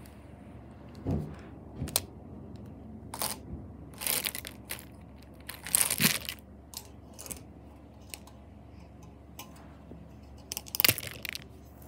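Rustling and plastic clicks as a bunch of markers and pens is handled and put down on carpet, in irregular short bursts that are loudest about six seconds in and near the end.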